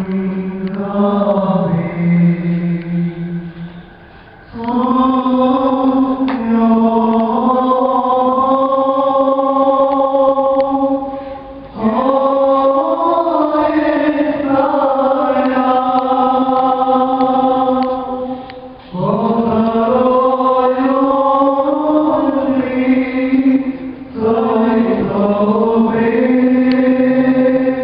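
A group of voices singing church liturgical chant in unison, in long phrases of held, gliding notes, each about five to seven seconds long, with short breaks between them.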